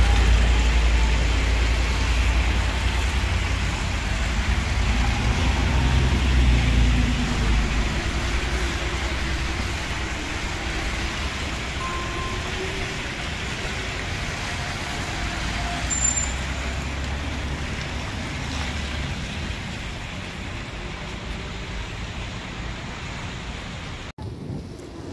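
City buses pulling past close by on a wet street: a low rumble of motors and tyres, heaviest over the first several seconds, then easing into steady traffic noise.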